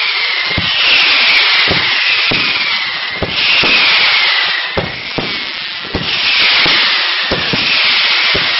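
A fireworks display: a loud, continuous hissing of burning shells and comet tails, with a falling whistle-like tone every second or so. Irregular sharp bangs of bursting shells run through it, about a dozen in all.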